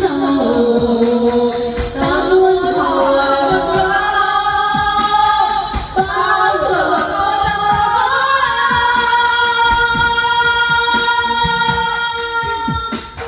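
Women singing a Vietnamese song into karaoke microphones over a backing track, holding long notes. The singing trails off near the end.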